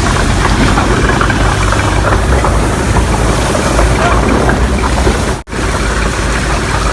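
Engine running steadily, driving a carrot-washing machine at work. The sound drops out for a split second about five and a half seconds in.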